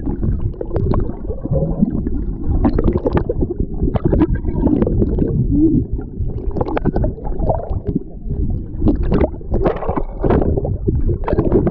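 Muffled churning and gurgling of sea water around a microphone that is underwater or being washed over by waves, with frequent irregular splashes.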